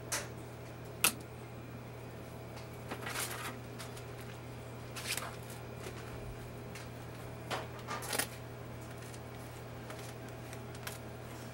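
Small handling noises over a steady low hum: a sharp click about a second in, then several short rustles of plastic piping bags and scissors being handled while decorating a cake.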